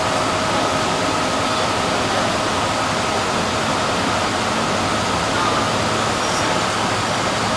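CSR Qingdao Sifang SFM04 subway train running at speed, heard from inside the car: a steady, even roar of wheels on rail with a faint whine that fades away in the first two seconds or so.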